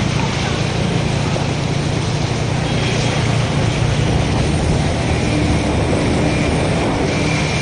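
Loud, steady road traffic noise from vehicle engines running on a waterlogged highway.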